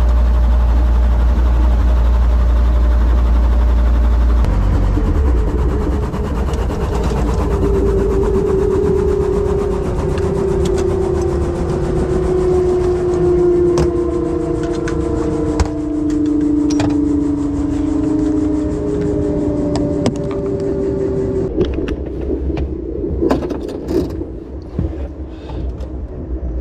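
Light helicopter shutting down on the ground: the engine's low rumble cuts out about four seconds in, then the rotor and drivetrain wind down with a slowly falling whine that fades out about three quarters of the way through. A few sharp clicks follow near the end.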